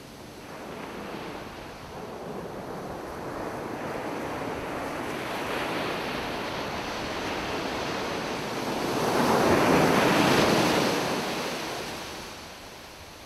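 Ocean surf on a beach: a wave rises, breaks loudest about nine to eleven seconds in, and washes back, fading near the end.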